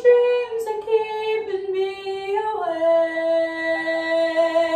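A young woman singing solo. She sings a short phrase of notes stepping downward, then settles on a long held note about halfway through.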